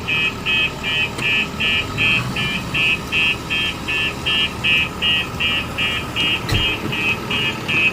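Reversing alarm of a heavy construction machine beeping rapidly, about two and a half high beeps a second, over a low engine running. A short knock comes about six and a half seconds in.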